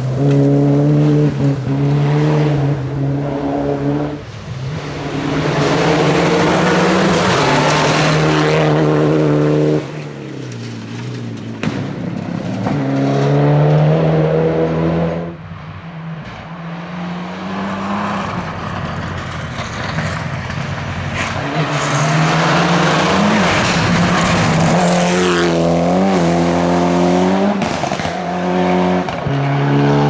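Rally cars driven hard on a gravel stage, engines revving high and climbing in pitch, then dropping back several times as they change gear or lift off.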